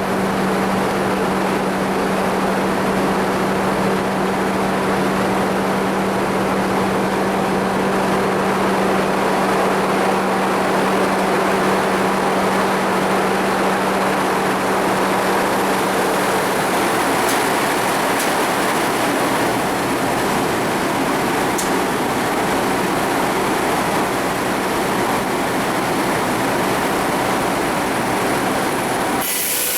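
Sawmill machinery running loud and steady, with a low hum that fades out about halfway through.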